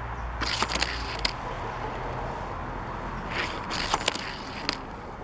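Hot Wheels Cloud Cutter toy car with clear plastic wheels rolling and clattering across a surface in two short runs, each a rush of scraping with sharp clicks, about three seconds apart.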